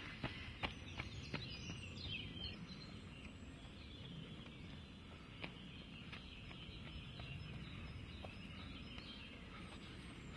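A trail runner's quick footsteps on a dirt and leaf-littered forest path, several in the first second or so and a few scattered later, over faint outdoor ambience. A bird calls with quick falling notes about two seconds in.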